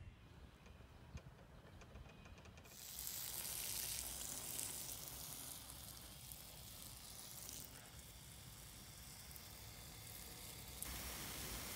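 Water spraying from a garden hose onto planters of chives: a steady hiss of spray falling on the soil, starting about three seconds in and shifting in level a couple of times.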